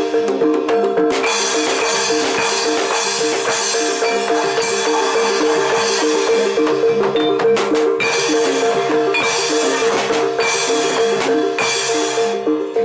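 Live Javanese gamelan music of a Barongan Blora group: struck metallophones and drums playing a steady, fast repeating pattern over a long ringing note.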